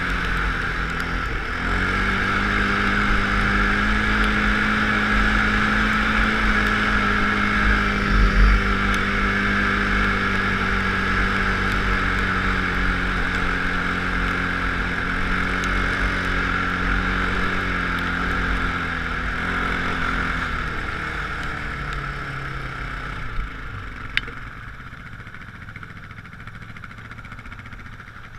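Off-road vehicle engine running at a steady speed over sand, with wind rushing over the microphone. The engine dips about a second in and picks up again, then winds down and fades from about twenty seconds in as the vehicle slows, with a couple of sharp clicks near the end.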